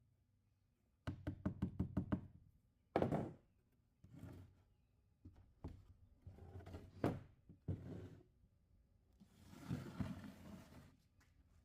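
A quick run of about eight knocks, then a single louder knock, then scattered knocks, and a short scraping rustle near the end.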